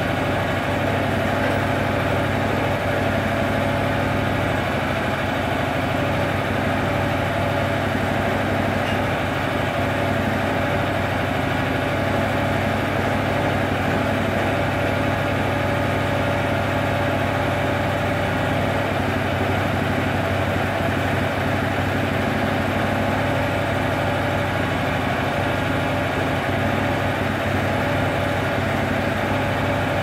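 Small gasoline engine of a Frontier OS23 portable bandsaw mill running steadily at idle, with an even hum and no change in speed.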